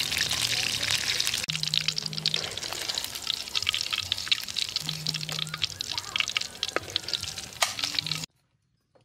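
Pieces of eel frying in hot oil in a wok: a dense, crackling sizzle full of small sharp pops. It cuts off suddenly near the end.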